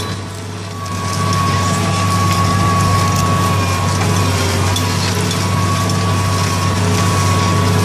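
John Deere tractor running steadily under ploughing load: a constant low engine drone with a steady high whine above it. The level dips briefly about half a second in, then picks up again.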